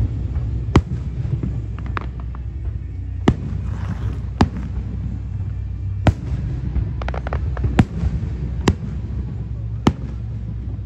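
Aerial firework shells bursting overhead, about seven sharp booms a second or two apart, with short runs of crackling in between, over a steady low rumble.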